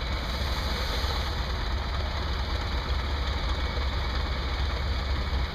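An engine running steadily at idle with a low, even hum.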